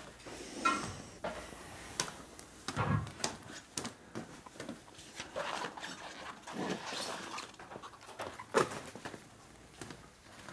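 A dog making small sounds, among irregular knocks and clatter, the loudest knock a little over eight seconds in.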